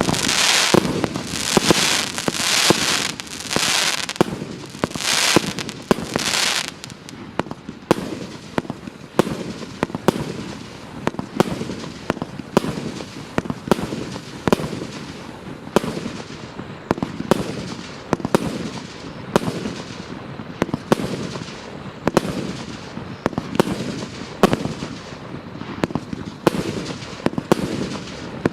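TKB066 'Krepkiy Oreshek' firework cake of 1.2-inch and 2-inch mortar tubes firing shot after shot, about two a second, each launch followed by its burst. The first few seconds are the loudest, with long hissing crackle after each shot.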